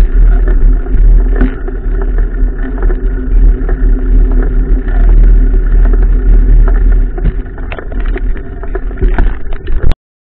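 Wind buffeting the microphone of a GoPro mounted on a moving mountain bike: a loud, deep rumble mixed with scattered clicks and knocks from the bike. The sound cuts off abruptly near the end.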